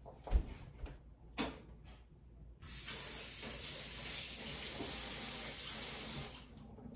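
A couple of light knocks, then a steady hiss that starts about two and a half seconds in, lasts about three and a half seconds and fades out near the end.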